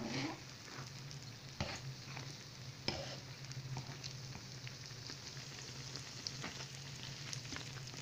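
Yeast-dough beignets frying in hot oil in a pan: a steady sizzle with scattered crackles and pops, the louder ones about one and a half and three seconds in, over a low steady hum.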